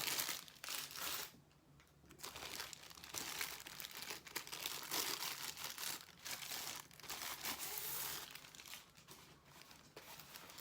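Plastic packaging of a diamond painting kit crinkling and rustling as it is handled and unwrapped, with a short pause about a second and a half in.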